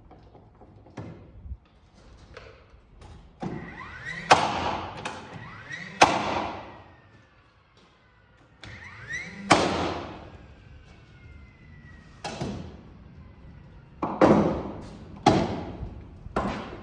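Cordless nail gun firing nails into truss lumber: several sharp shots a second or more apart, the tool's motor whining up briefly before some shots and winding down after.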